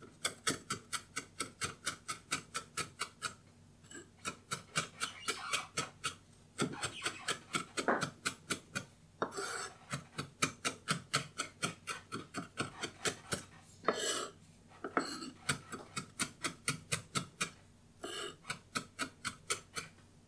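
Chef's knife rapidly chopping red chilli on a wooden chopping board: runs of quick knocks of the blade on the wood, about four to five a second, with short pauses. A few longer scraping sounds of the blade on the board break up the runs.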